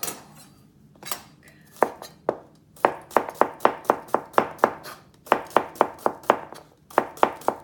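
A chef's knife slicing a peeled cucumber into thin rounds, each stroke knocking on a plastic cutting board. A few single cuts come first, then quick even runs of about five cuts a second with short pauses between them.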